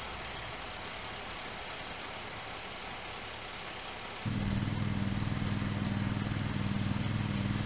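A steady hiss, then about four seconds in a fire engine's engine comes in suddenly, running at a steady speed with a low, even hum.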